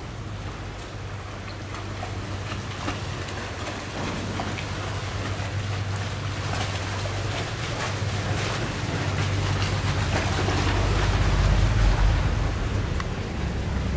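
Boat engine running with a steady low hum over rushing, splashing water, both growing louder and peaking about twelve seconds in as a boat pushes through the sluice against the current.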